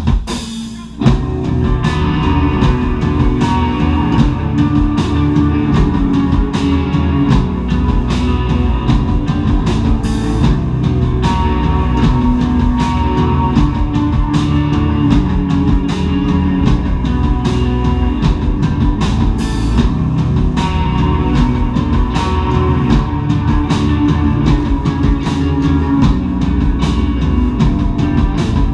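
Live rock band playing loud: distorted electric guitars, bass guitar and drum kit together. The band drops out briefly and crashes back in about a second in, then plays on steadily.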